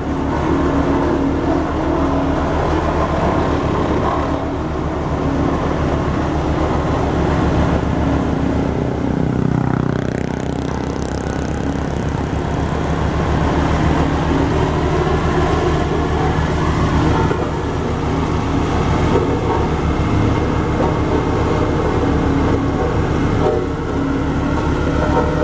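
Heavy diesel engine of a road roller running steadily, with a rapid, even pulsing throughout and a brief change in pitch about ten seconds in.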